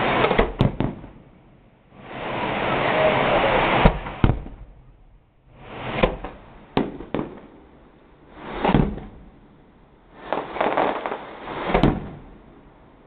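Fireworks going off: several loud swells of crackling, each a second or two long, with sharp bangs among them and short quieter gaps between.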